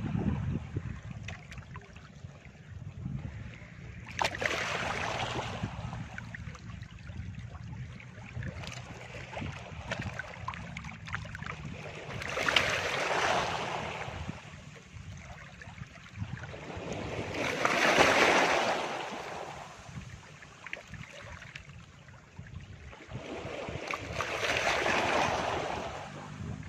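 Calm sea waves breaking and washing up a beach: four surges of surf, about five to six seconds apart, the one about two-thirds of the way through the loudest, over a steady low rumble.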